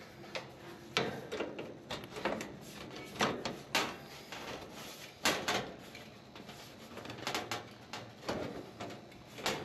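A series of irregular clicks, knocks and short scrapes from hands working at an air-conditioning condensing unit's sheet-metal panel and its refrigerant hose and fittings.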